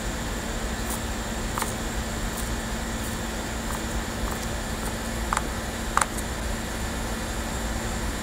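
Knife chopping herbs on a plastic cutting board: scattered single taps, the two loudest just past the middle, over a steady low hum.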